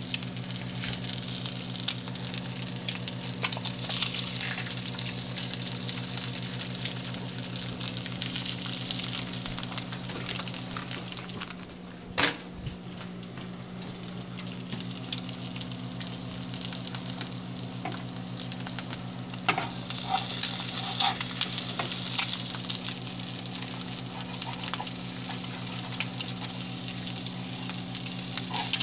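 Eggs frying in hot bacon grease in a pan: a steady sizzle with crackles and pops, which fades for a while near the middle and comes back louder. A sharp knock about twelve seconds in, and a steady low hum underneath.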